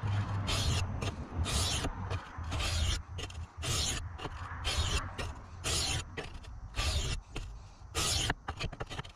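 Knife blade stroked back and forth across the coarse face of a multi-grit oil stone: a quick run of short, hissing scrapes, about one and a half a second.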